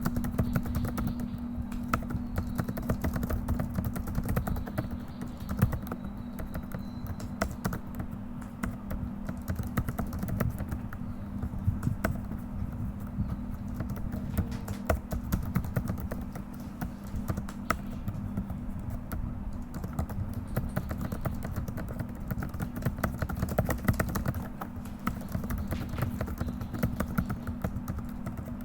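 Fast, continuous typing on a computer keyboard, a dense irregular run of key clicks, over a steady low hum.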